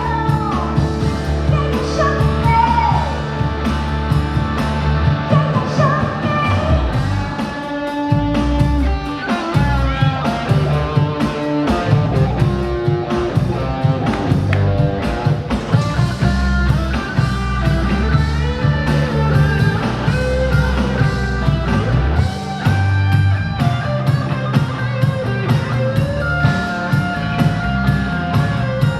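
Rock music with singing and guitar over a steady beat.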